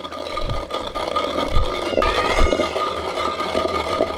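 Wooden pestle stirring and pressing a wet yogurt-and-spice paste in a terracotta bowl: scraping against the clay with a few low thumps.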